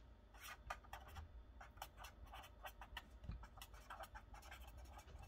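Felt-tip marker writing on paper: a quick, irregular run of short, faint scratchy strokes as letters are drawn.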